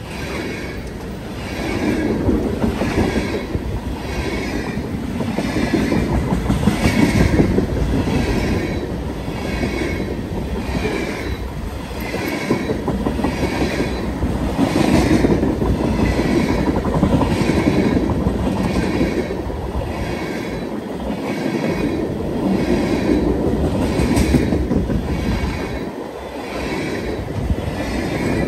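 Freight train of tank cars rolling past: a steady rumble of steel wheels on rail with a regular clickety-clack that repeats a little faster than once a second.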